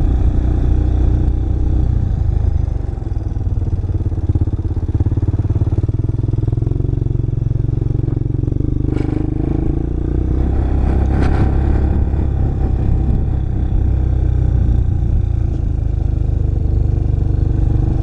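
ATV (four-wheeler) engine running under way along a rough dirt trail, its note easing off briefly about three seconds in and then picking up again, with a couple of short clatters near the middle.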